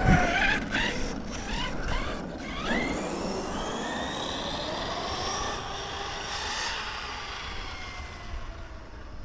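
Electric RC car's motor whining as the car speeds away, the pitch sweeping up and then slowly sinking as it fades into the distance. A few sharp clicks come in the first couple of seconds.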